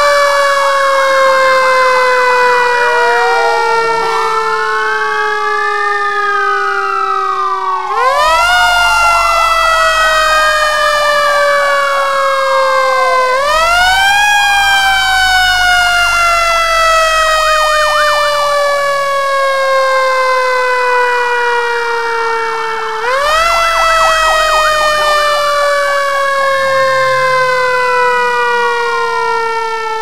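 Fire truck siren wailing: the pitch shoots up and then falls slowly, starting over about every five to ten seconds, while a second siren tone swoops up and down over it. A low rumble runs under it from about eight seconds in.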